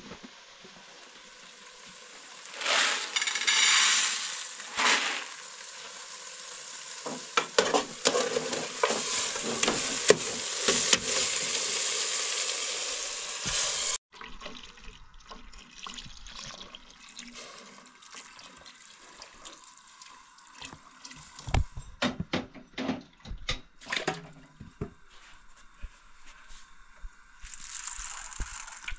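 Water poured from a jug into a metal pot of meat and broth on a gas burner: a steady rushing hiss with louder splashing surges that stops abruptly about halfway through. After that come quieter clinks and knocks of dishes and water being handled.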